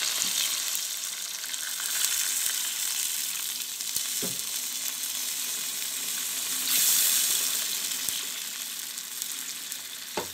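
Chicken pieces sizzling in hot oil in a pan as water is poured in, the liquid then sizzling and bubbling steadily, with a few light knocks of a utensil. The hiss swells briefly about seven seconds in.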